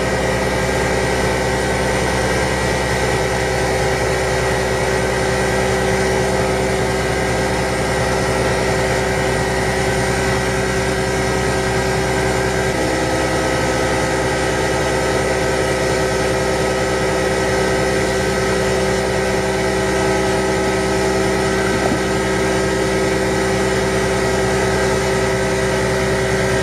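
Small lathe running steadily, its motor giving a constant hum with a high whine as the pen section spins; another steady tone joins about halfway through.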